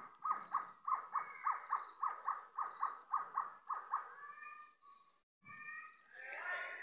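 A bird calling: a fast run of short, repeated notes, about four a second, that thins out after about four seconds and gives way to a few longer calls.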